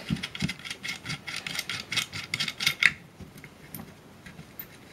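Threaded metal coupling nut of a Soviet coax cable connector being twisted onto a connector on the antenna housing by hand: a fast run of small scraping clicks of metal on metal for about three seconds, then only a few faint ticks.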